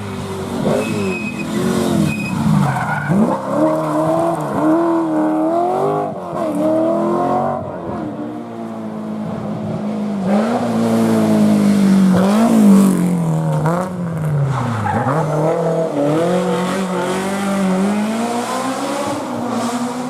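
Historic rally car engine revving hard, its note climbing and dropping again and again through gear changes and lifts, loudest a little past halfway.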